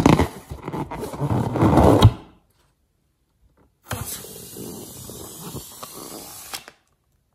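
Hands squeezing and rubbing a slime-filled rubber balloon: loud rubbery squeaks and scrunching that stop about two seconds in. After a silent gap, a snip of small scissors cutting off the balloon's tip, then quieter handling of the balloon with a few clicks.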